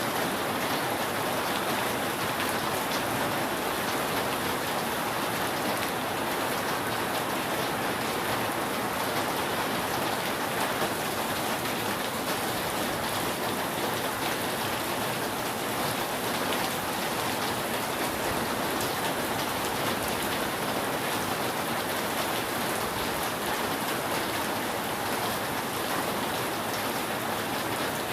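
Steady, dense rain falling on a roof, an even patter with no thunder.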